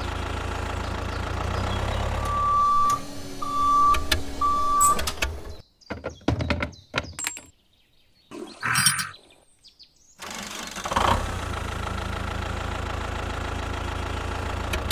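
Tractor engine idling, a low steady rumble, with three short high beeps a couple of seconds in. The engine sound stops about halfway, giving way to a few clicks and a brief rattle while a bolt is dropped through the trailer hitch, and then the engine idles again.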